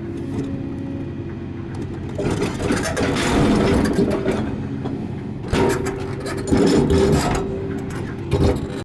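Excavator's diesel engine running steadily, with two louder stretches of clattering and knocking, one about two seconds in and one past the middle, and a short burst near the end, as the machine works under load.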